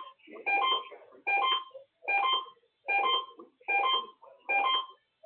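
A short electronic figure of several steady tones sounded together, repeated the same way about six times, roughly once every 0.8 s, in a radio broadcast with a narrow, muffled band.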